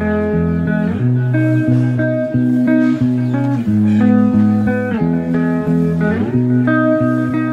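Guitar-led instrumental background music, its notes and chords changing about once a second.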